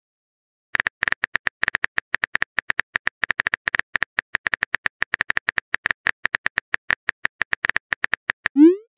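Texting-app keyboard typing sound effect: a long run of rapid, even key clicks, about seven a second, while a chat message is typed. It ends with a short rising whoosh as the message is sent.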